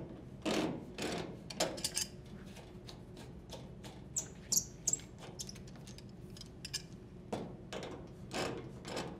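Channel lock pliers clicking and scraping on the brass couplings of washer water supply hoses as they are unthreaded from the inlets, with scattered small clicks and rubs of the hoses being handled.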